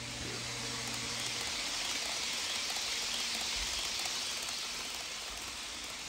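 HO scale model passenger train's metal wheels rolling over the rails as its cars pass close by: a steady hiss that swells and then eases off near the end. A low hum stops about a second and a half in.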